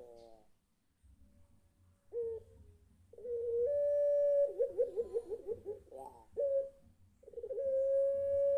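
Puter pelung, a Barbary dove, cooing: a short note about two seconds in, then a long drawn-out note that breaks into a quick rolling run of notes. A second long note begins near the end.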